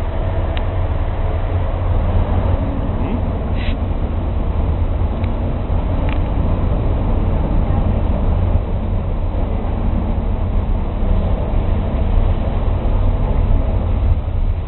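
Inland motor tanker's engine running as the vessel moves slowly ahead into a lock chamber, a steady low rumble.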